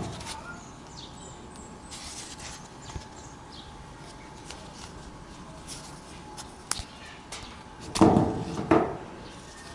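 Handling noises from rubber slippers and their packaging: scattered light clicks and rustles, then two louder thumps about eight seconds in.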